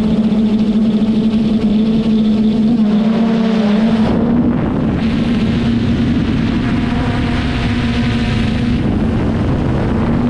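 Traxxas Aton quadcopter's brushless motors and propellers humming steadily, heard up close. About four seconds in the pitch wavers and dips briefly, followed by a stronger rush of air noise for several seconds before the steady hum returns.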